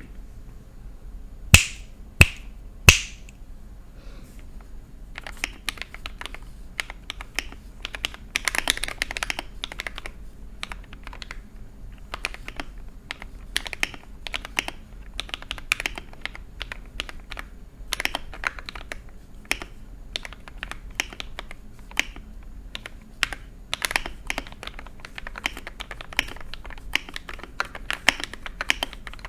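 Typing test on a mechanical keyboard fitted with Akko Neon double-shot ASA-profile keycaps: three loud sharp clicks near the start, then steady, fast keystrokes clacking from about five seconds in.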